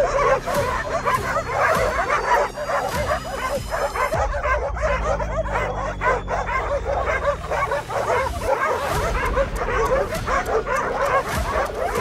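A pack of stray dogs barking and yipping without pause, many voices overlapping. This is territorial barking at a stranger crouched among them in the street they guard.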